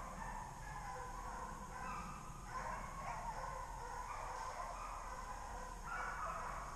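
A pack of deer hounds baying as they run a deer, several voices overlapping in long, drawn-out cries.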